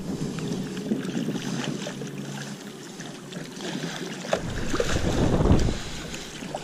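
Water splashing and rushing at the bow of a stand-up paddle raceboard as it glides, with paddle strokes dipping into the water. Wind buffets the microphone, with a louder rush of wind and water about four and a half seconds in.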